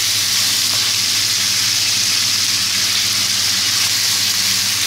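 Pieces of beef rib sizzling in hot oil in a frying pan as they are stir-fried, a steady even sizzle. A faint low hum runs underneath.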